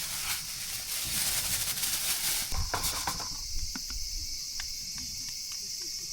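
Insects chirping in a steady high drone, partly covered by a broad rustling noise for the first three seconds or so that then drops away, with scattered small clicks and a low rumble throughout.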